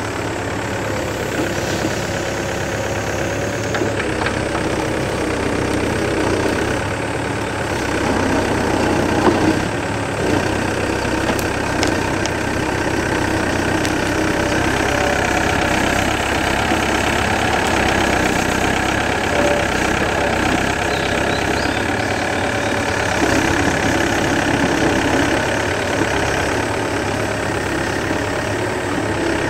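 Yanmar B7 mini excavator's diesel engine running steadily under working load, with a steady higher whine over it, while its bucket and hydraulic thumb dig out a tree stump and its roots. An occasional knock comes through near the middle.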